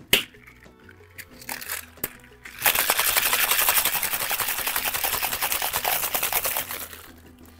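Ice rattling in a two-tin stainless steel cocktail shaker shaken to mix a margarita: a fast, even rattle that starts a few seconds in and lasts about four seconds before fading. One sharp knock comes right at the start.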